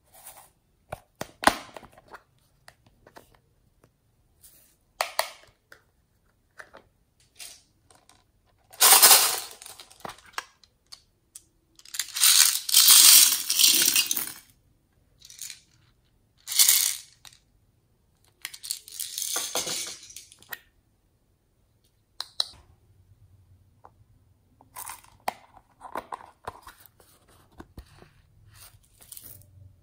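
Small plastic beads being shaken and poured out of a hinged plastic toy case, rattling loudly in several spells, the longest about two seconds, with sharp clicks of the case's plastic lid before and after.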